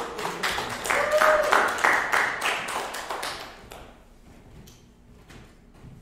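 Small audience clapping, with one short cheer about a second in; the applause fades out after about three and a half seconds, leaving a few scattered claps.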